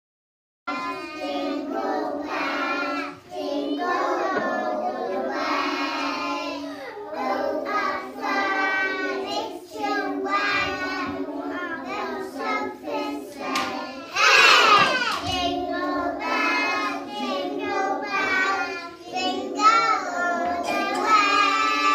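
A group of young children singing together, starting about a second in, with one voice ringing out loud and high for a moment a little past the middle.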